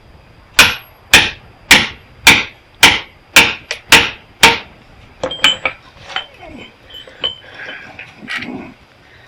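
Hammer striking metal: eight sharp blows at a steady pace of about two a second, followed by a few lighter knocks and clinks.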